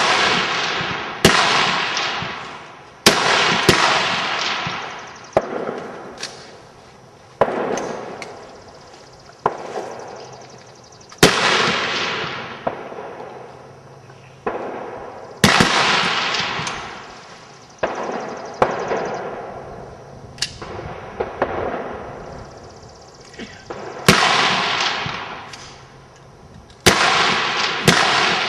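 High-power rifles firing slow fire along a firing line: about twenty shots at irregular intervals, sometimes two close together. Each sharp report is followed by a long echo that fades over a second or two.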